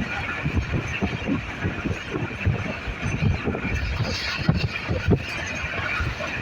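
Pakistan Railway passenger train running at speed: a steady rolling rumble with irregular low thumps and a thin high steady whine over it.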